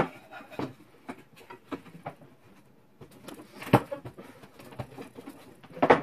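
Hammer knocking on a wooden block to drive a dowel into a soft cedar drying-rack frame: irregular knocks, loudest at the start, about four seconds in and near the end.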